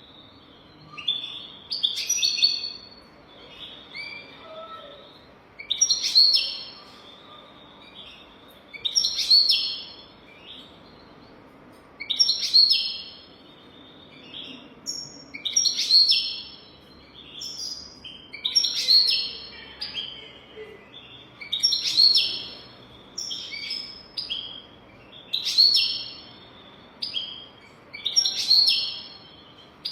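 European goldfinch singing: bursts of twittering, tinkling song phrases that repeat about every three seconds, with short pauses between them.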